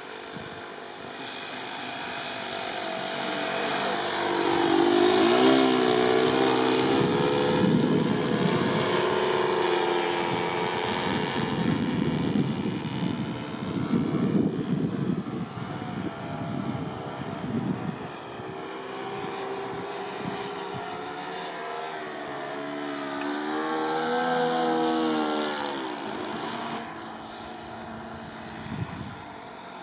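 Twin-engine propeller plane making low flypasts: the engine drone swells as it comes in and drops in pitch as it passes, once about five seconds in and again a little after twenty seconds.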